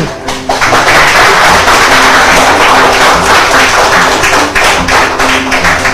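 A crowd clapping and cheering, starting about half a second in and going on steadily, over background music.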